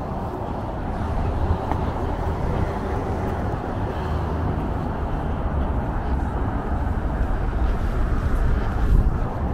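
Steady rumble of road traffic on a multi-lane road and elevated expressway, a constant low noise with no single vehicle standing out.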